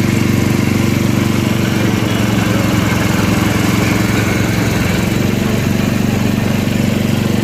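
Motor-driven sugarcane juice crusher running steadily, its rollers and gears turning as cane is fed through.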